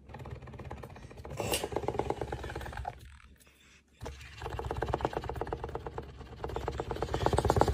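Kitten purring: a fast, even rattle that pauses for about a second near the middle, then resumes.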